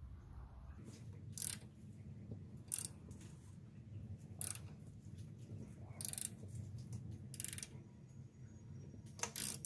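Ratchet wrench on the crankshaft bolt of a Gen 2 Coyote V8, turning the engine over by hand: a short burst of ratchet clicks on each return swing, six times about every second and a half, over a low steady hum.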